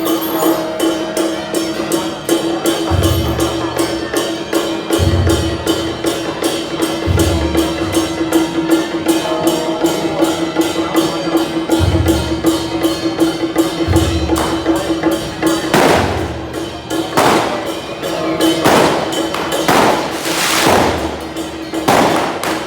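Temple procession music: fast, even percussion ticks over a held tone, with a low drum beat that comes and goes every couple of seconds. About two-thirds of the way through, several loud bursts of firecrackers break in.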